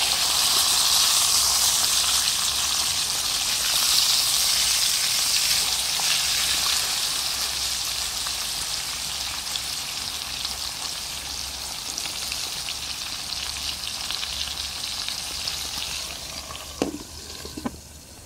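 Fish frying and sizzling in a pan on a portable gas burner, a steady hiss that slowly fades. Two light clicks come near the end.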